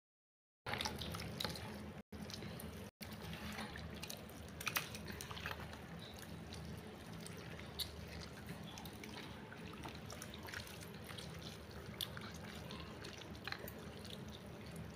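Faint steady low hum with scattered small clicks and taps.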